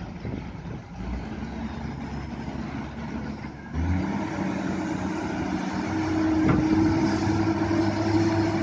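Komatsu PC200 hydraulic excavator's diesel engine running steadily, getting louder about four seconds in as the machine swings its boom and lowers the bucket into the trench. A single short knock comes a couple of seconds after that.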